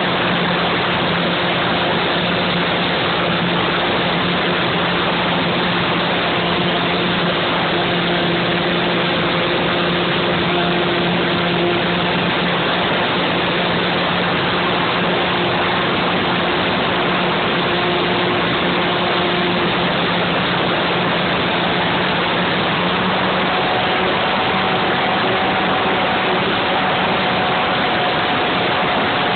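Steady rushing noise with a faint even hum from an FPV model plane's motor and propeller in flight, picked up through the onboard camera's audio.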